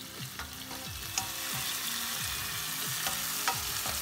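Chopped tomatoes in hot oil sizzling in a pan while a slotted plastic spoon stirs them, with a few sharp taps of the spoon against the pan.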